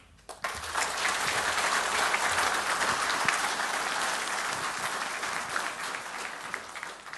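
Audience applauding, which begins about half a second in and dies away near the end.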